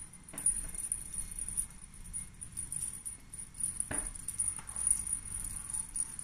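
Cat feather teaser toy jingling and rattling as it is waved. A soft knock comes about four seconds in as the kitten pounces at it.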